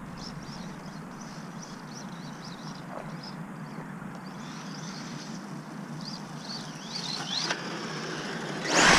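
Small birds chirping faintly over quiet outdoor background noise. Just before the end a loud rushing noise comes in suddenly.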